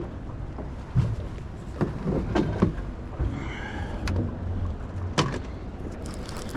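A few sharp knocks and clunks in a fishing boat over a steady low rumble, as a hooked fish is fought.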